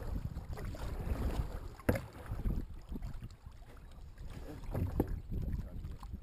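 Double-bladed kayak paddle strokes dipping and splashing, with wind rumbling on the microphone. Two sharp knocks stand out, about two seconds in and again about five seconds in.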